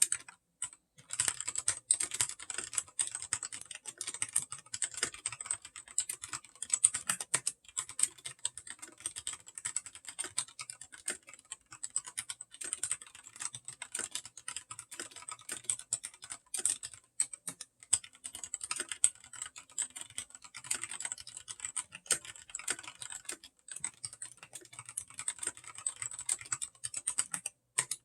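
Continuous fast typing on an AKKO Ducky Zero mechanical keyboard with Cherry MX Red linear switches: a dense, uneven stream of key clacks. There are a few brief pauses, the first about half a second in.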